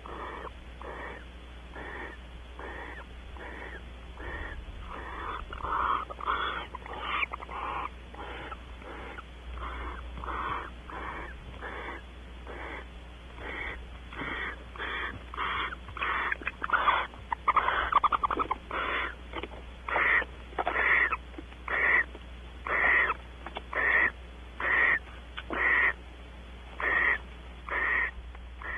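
Barn owls giving a long series of short, wheezy hissing calls, softer and closer together at first, then louder and about one a second. A louder, denser run of calls comes about halfway through.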